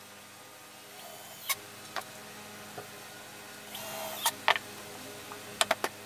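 Cordless drill runs in one short burst of about half a second, drilling into aluminium edge trim on a wooden box. Sharp clicks and knocks come before and after it as the box is handled and the drill is set down on the table. A steady low hum runs underneath.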